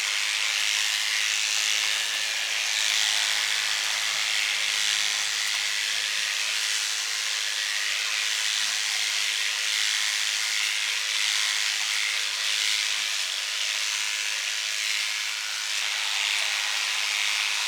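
Electric hair clippers running steadily, an unbroken buzzing hiss.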